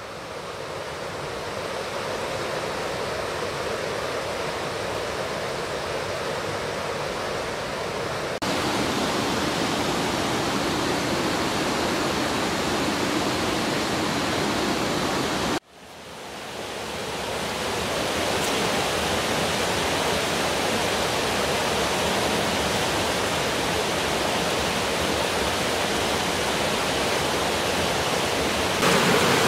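Rocky river rushing over stones and small waterfalls: a steady wash of water that fades in and steps up a little over eight seconds in. It cuts out briefly about halfway, fades back in, and gets louder near the end.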